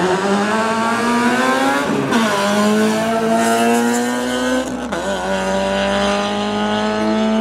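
Two drag-racing cars, an Infiniti sedan and a Honda Civic hatchback, accelerating hard down the strip from the start line. Their engine note climbs steadily in pitch and drops at gear changes about two and five seconds in.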